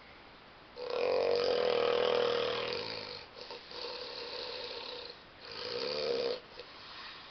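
A person snoring: one long, loud snore starting about a second in, a quieter breath after it, then a second, shorter snore near the end.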